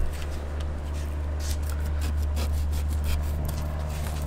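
Flexible fillet knife slicing and scraping through an Atlantic sharpnose shark's meat along its cartilage and tough skin, in short rasping strokes. A steady low hum runs underneath.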